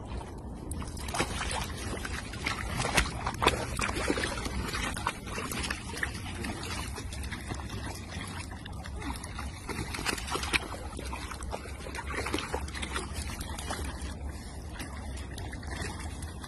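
Water splashing and sloshing as a pug wades and paddles through a shallow pool, with many short irregular splashes, over a steady low rumble.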